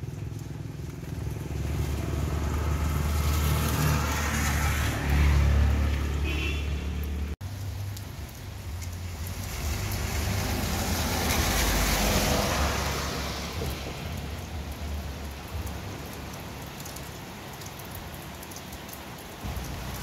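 Steady rain with vehicles passing on a wet road. One swells with a low engine rumble and cuts off suddenly about seven seconds in. Another's tyre hiss rises and fades around the middle.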